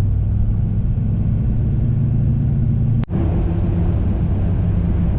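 Steady cabin drone of a pickup driving on a winter road, the LML Duramax 6.6 L V8 turbodiesel running at cruise under road noise. The sound briefly drops out just after three seconds in.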